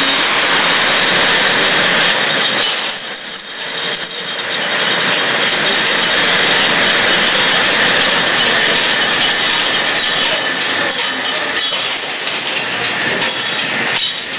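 Old woollen-mill textile machinery running: a loud, steady mechanical din that eases briefly about three seconds in.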